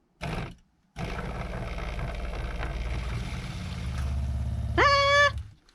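Electric water pump of a van's freshwater system switched on for a first test to see whether it self-primes: a short burst, then steady running with a low rhythmic hum from about a second in. Near the end a person lets out a loud, short rising cry over it, and the pump stops just after.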